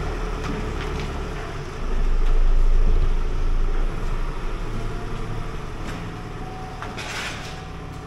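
A car's engine running as the vehicle drives slowly out of a bunker. The low rumble swells about two seconds in, then fades as the car moves off. A short hiss comes near the end.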